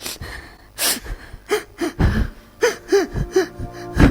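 A person crying: sobbing, gasping breaths and a string of short, broken whimpering cries about halfway through.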